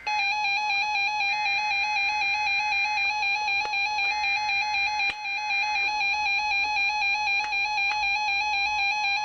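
Alarm of a RadioShack 12-521 NOAA weather radio receiver sounding for a Required Weekly Test: one steady, buzzy electronic tone with a fast, even flutter.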